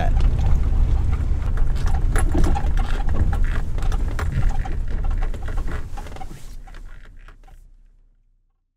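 Vehicle cabin sound while driving slowly: a steady low rumble of engine and tyres, with small knocks and rattles from the cab, fading out to silence near the end.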